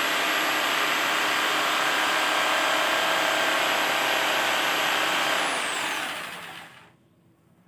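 Electric jigsaw running steadily on acrylic sheet, then switched off about five seconds in, its motor whine falling in pitch as it spins down to a stop within about two seconds.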